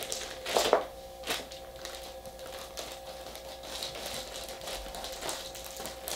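Plastic courier mailer bag crinkling and rustling as it is handled, with two louder rustles in the first second and a half, then fainter handling noises.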